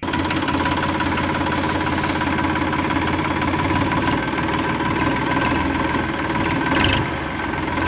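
Tractor engine running steadily at idle.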